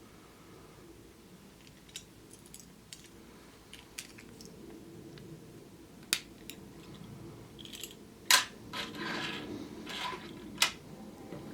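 Hands handling a Kinder Surprise egg and its small plastic toy parts: scattered sharp plastic clicks and snaps, the loudest about two-thirds of the way in, with a stretch of rustling after it.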